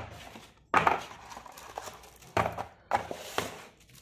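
Handling noise from a pen camera's packaging: several sudden knocks and thumps with paper rustling as the pen, its paper manual and its box are handled and set down on a desk.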